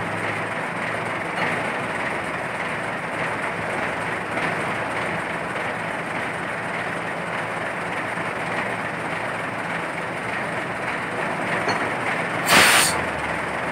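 Heavy diesel machinery running steadily, with a short, sharp burst of noise near the end.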